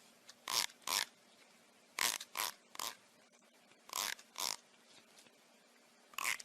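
An animal's short breathy puffs of air, about nine in all, coming in twos and threes roughly every two seconds.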